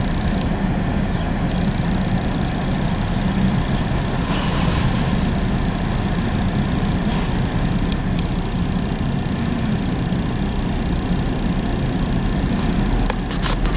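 Steady low rumble of a heavy vehicle, with a few sharp clicks near the end.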